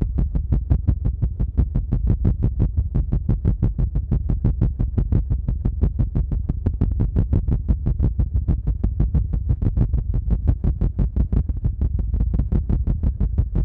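Hands rapidly and evenly patting or pounding on the binaural microphone's ears in the ASMR 'helicopter' trigger, a fast deep thudding of several strokes a second.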